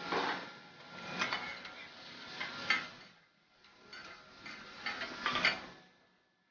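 Metal teppanyaki spatulas clicking and scraping against a steel griddle while cubes of beef are turned, in about four short flurries of sharp clicks.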